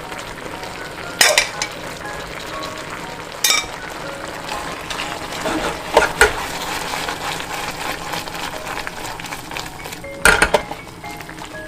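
Food sizzling in a frying pan while it is stirred, with a utensil clattering against the pan a few times. Soft background music plays underneath.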